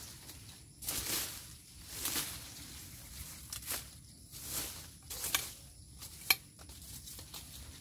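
Dry sugarcane leaves and weeds rustling and crackling as they are cut and pulled away low among the stalks by hand, in irregular swishes roughly once a second. A single sharp snap, the loudest sound, comes about six seconds in.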